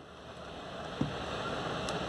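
Steady background hiss with a single light knock about a second in and a faint click near the end, handling noise as a small radio's casing is fitted back together.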